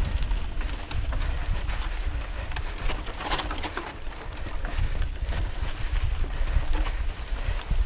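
A mountain bike ridden fast over a rough, rocky dirt singletrack: wind buffets the action camera's microphone with a heavy rumble, and the bike's tyres and frame give scattered clicks and rattles. A brief louder rasp comes a little past three seconds in.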